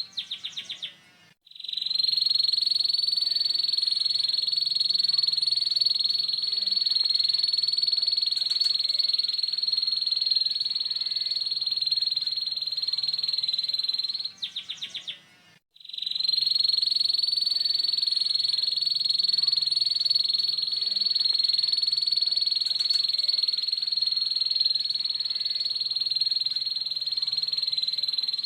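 Domestic canary singing a long, coarse 'ngeriwik' roll: a fast, rasping high trill held for about twelve seconds at a time. It breaks twice, about a second in and again around the middle, each time with a short slower trill and a brief pause.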